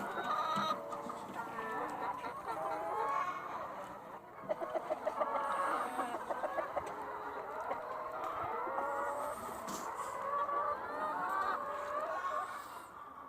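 A flock of chickens clucking and calling over one another, with a run of quick clucks about four and a half seconds in.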